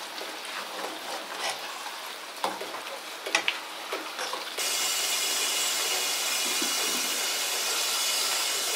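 Outdoor cooking sounds: a few light knocks and clicks, then, starting suddenly about halfway through, a steady high-pitched hiss.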